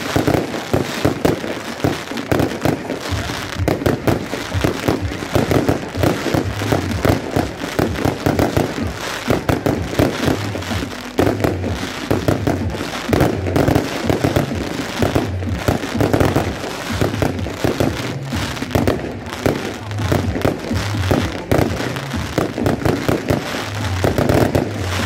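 Fireworks display: a continuous barrage of aerial shells bursting, with many bangs and crackles in quick succession and no let-up.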